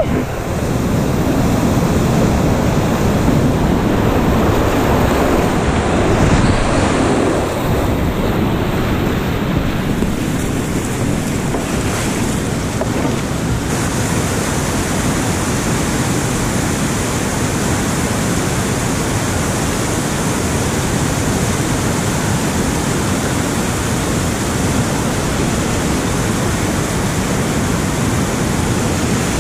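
Whitewater rapids and a small waterfall rushing, heard close by from a kayak. It is a loud, steady wash of water noise that turns brighter and hissier about ten seconds in.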